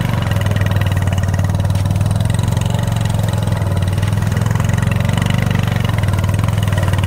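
Motorcycle engine running at a steady pitch while the bike is ridden slowly through soft sand.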